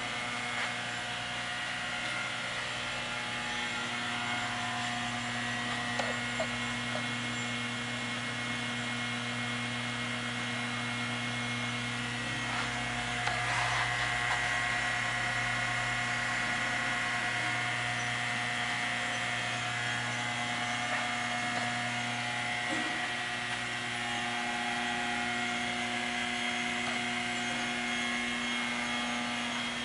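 BTU industrial furnace running during a 500 °C test: a steady mechanical hum with several held tones, a little louder for a while around the middle, with a few faint clicks.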